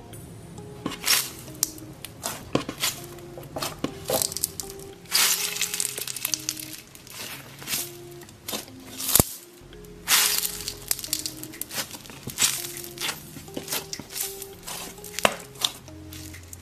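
Soft squishy foam toys, including a rainbow popsicle-shaped squishy, squeezed and pressed by hand: an irregular string of crackling, squelching squeezes, with one sharp click about nine seconds in. Soft background music plays underneath.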